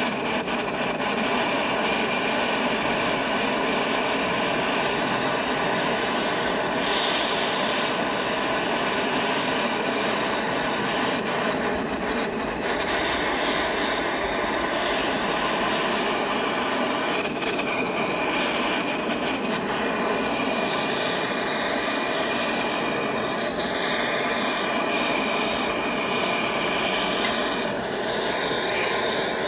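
Gas torch flame blowing steadily into a crucible, melting sterling silver scrap.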